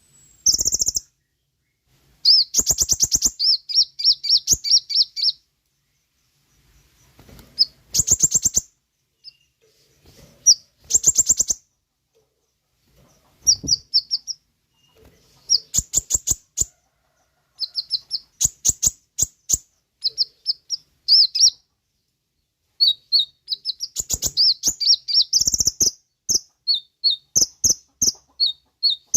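Kolibri ninja (konin) sunbird singing: bursts of rapid, high-pitched chirping twitters and trills, broken by short pauses, with quicker clipped phrases near the end.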